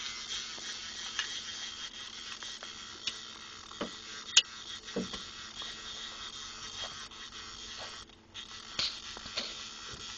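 Rain pattering steadily, with a faint steady hum underneath and scattered sharp ticks, the loudest about four and a half seconds in.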